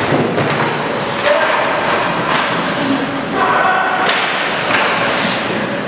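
Ice hockey play: a run of thuds and knocks from puck, sticks and players against the boards, over a steady wash of skating noise, with brief shouts from players about three and a half seconds in.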